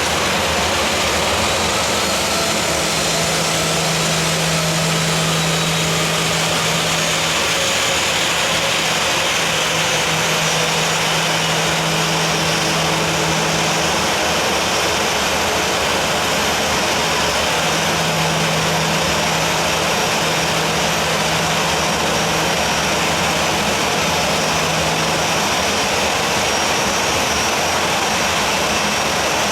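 Boeing 737-800's CFM56 jet engines running steadily, a dense even rushing noise. A low hum runs underneath and drops out for a few seconds midway.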